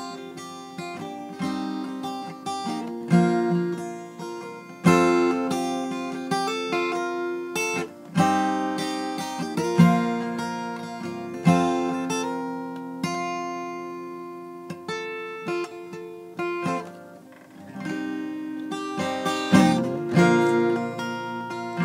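Background music on acoustic guitar: chords struck every second or two and left to ring out between strokes.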